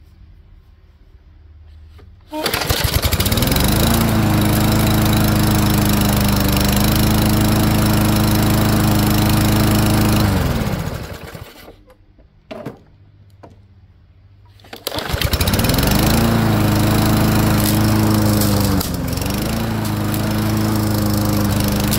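Briggs & Stratton 550EX 140 cc overhead-valve single-cylinder mower engine, freshly valve-adjusted, catching on a pull about two seconds in, revving up and running steadily, then winding down and stopping about ten seconds in. After a short knock it is started again about fifteen seconds in and keeps running, with one brief stumble near nineteen seconds, a hiccup before it settles into running well.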